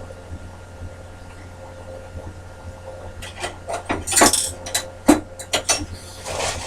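Metal bandsaw parts being handled: a run of sharp clicks, knocks and a brief rattle starting about three seconds in, over a low steady hum.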